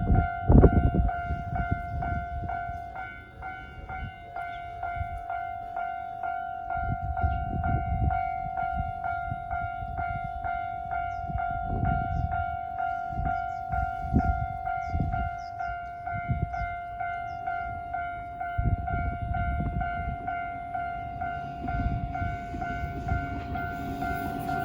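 Japanese railway level-crossing alarm sounding its standard electronic bell: a rapid, even run of dings on one ringing tone. Over the last couple of seconds a train's rumble rises as it approaches.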